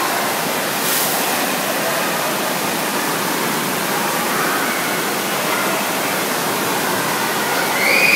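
Steady rush of water in an indoor water park's lazy river.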